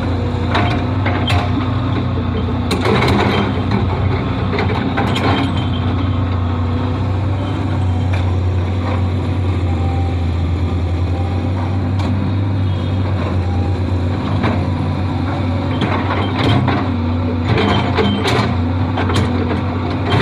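Heavy diesel engine of an excavator running steadily, with scattered sharp metallic clanks and knocks, clustered about three to five seconds in and again near the end.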